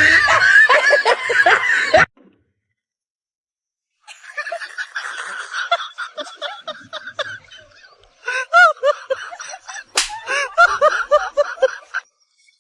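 Loud voices cut off abruptly about two seconds in, then after a moment of silence come laughter and snickering in quick repeated bursts, with one sharp slap about ten seconds in.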